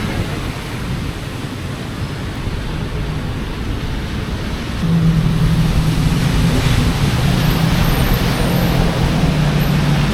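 Steady hiss of heavy rain and street noise, with a motor vehicle's engine running close by from about five seconds in as a low steady hum.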